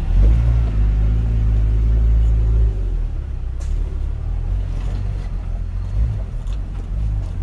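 Engine of an off-road vehicle running with a steady low rumble, louder for about the first three seconds and then easing off.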